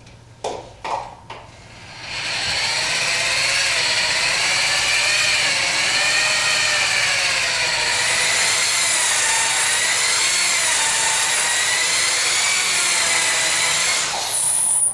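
Variable speed drill spinning a bonneted polishing cup against a bowling ball to buff it. It starts with a few short blips of the trigger, then runs steadily for about 13 seconds, its motor pitch wavering slightly, and stops just before the end.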